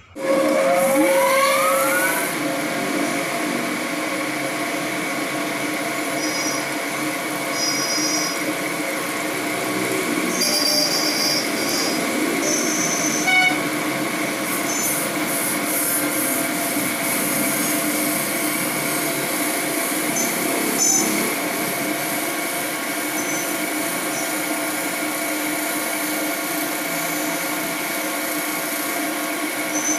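Crank grinding machine running, its wheel grinding down the worn bearing journal of a submersible motor rotor under a flood of coolant, to bring it to size for new bushes. A steady machine whine made of several held tones, rising in pitch over the first two seconds, with a few short high squeaks in the middle.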